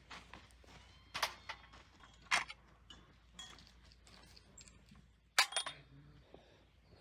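Small metal tart molds clinking as they are handled and set down on a plate and tray of other molds: a few sharp clinks, the loudest cluster about five seconds in.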